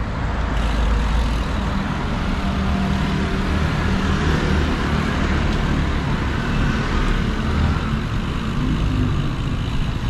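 Steady street traffic noise of cars and scooters, heard while riding along a city road, with a constant low rumble throughout.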